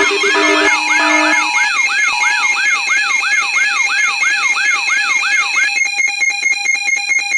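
Layered electronic siren and alarm sounds: a whooping sweep that repeats about twice a second and quickens to about three a second, over steady tones and pulsing beeps that stop after about a second and a half. Near the end it turns into a rapid pulsing buzz, then everything cuts off suddenly.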